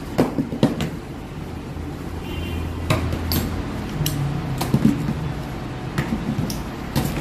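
Scattered sharp knocks and clicks of household objects being handled and set down, about seven over several seconds, over a steady low hum.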